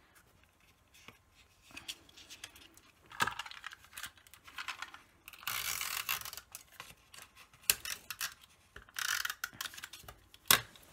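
Pieces of cardstock being handled and slid against each other and across a wooden desk: irregular bursts of paper scraping and rustling, with a few sharp clicks near the end.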